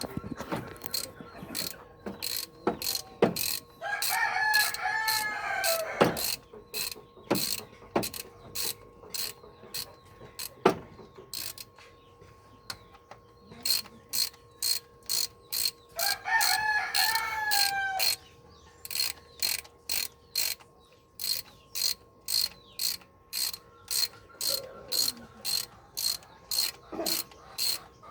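Ratchet wrench clicking in long runs of quick, even strokes. A rooster crows twice, at about four and sixteen seconds in.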